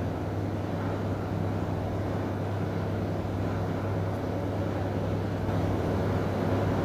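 Steady low hum with a faint hiss behind it, unchanging throughout, with no ticks or beeps.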